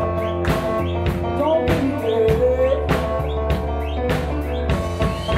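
A live rock band playing: a woman singing over a drum kit keeping a steady beat, electric guitar and keyboard.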